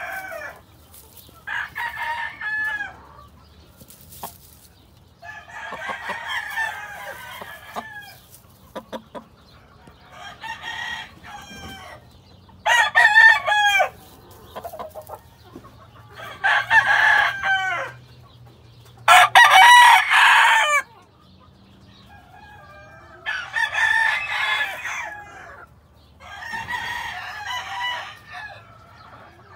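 Game roosters crowing one after another, about eight crows a few seconds apart, each ending in a falling drawn-out note. Some crows are much louder than others, so several birds at different distances are crowing.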